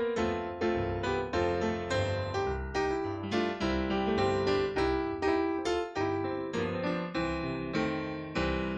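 Piano playing a slow instrumental piece, with notes and chords struck in a steady rhythm, each dying away.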